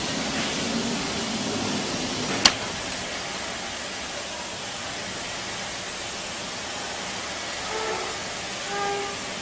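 Steady hiss of air and machinery around a large ultrasonic welding press for cotton and non-woven fabric, with one sharp click about two and a half seconds in.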